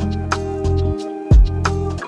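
Background music: a beat with a deep bass hit about halfway through and a steady tick of hi-hats under held chords.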